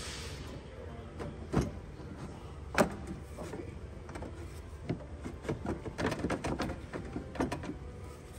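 Knocks, clicks and scraping of a radiator and the plastic fan housing around it being worked into a tight engine bay. There are two sharp knocks, the louder about three seconds in, then a busy run of clicks and rubbing in the last few seconds as the radiator catches on the housing.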